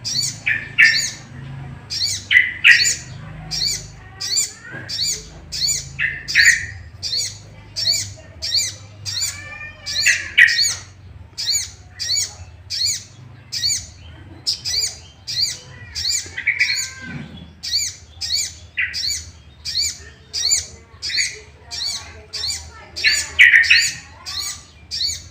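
A sogok ontong (sogon) bird calling in a fast, regular series of short, sharp high notes, about two a second, with lower, louder notes breaking in every few seconds. It is an agitated 'emosi' call of the kind used as a lure to provoke other sogon birds into calling and fighting.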